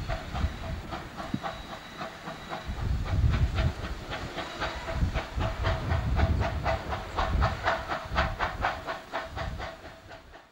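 Steam locomotive working as it backs a train of coaches: steam hissing with a quick, regular beat of about four strokes a second, fading away near the end.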